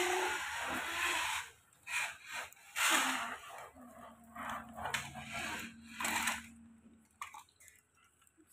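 Plastic toy tractor and trailer pushed by hand over a wooden table: the wheels and plastic scrape and rattle in short bursts, strongest near the start, about three seconds in and about six seconds in.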